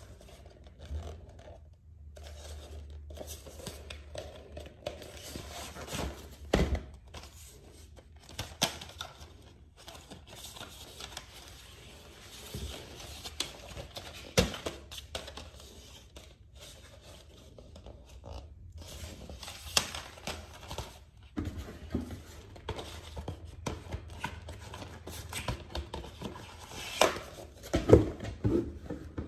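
Handling of a DVD box-set case: the fold-out cardboard sleeve and plastic disc trays rustle, scrape and click as it is turned over and opened, with scattered sharper taps over a low steady hum.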